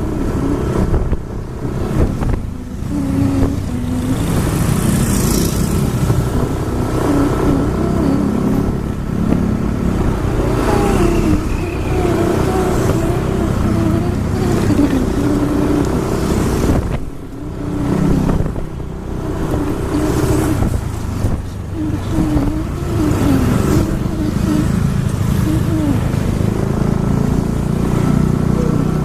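Road traffic and engine noise heard while riding along behind a bus: a steady low engine and road rumble, with wavering tones coming and going over it.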